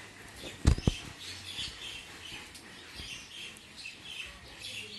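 Small birds chirping in short repeated calls, with two dull low thumps close together about a second in.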